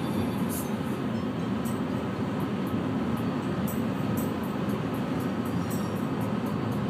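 Steady road and engine drone inside a car's cabin at highway speed.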